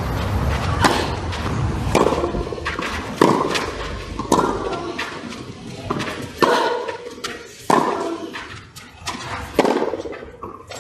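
Tennis balls struck by rackets in a baseline rally on a clay court, about nine sharp hits a little over a second apart.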